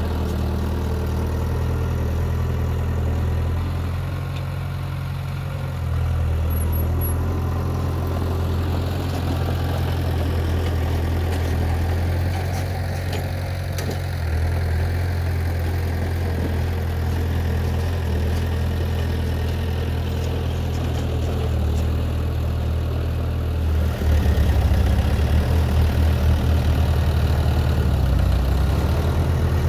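Heavy diesel construction machinery engines running steadily with a deep drone. Near the end they grow louder, with a quick throbbing pulse.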